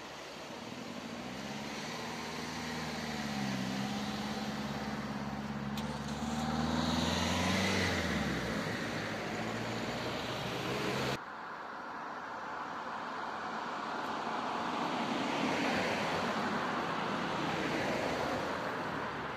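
Cars and a van driving over a level crossing one after another on a damp road: an engine pulls away for the first several seconds, then tyre noise swells and fades as vehicles pass close by.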